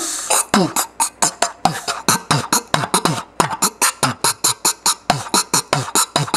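Rapid beatbox-style mouth noises: quick percussive bursts, about five a second, each with a falling low thud and a hissy top.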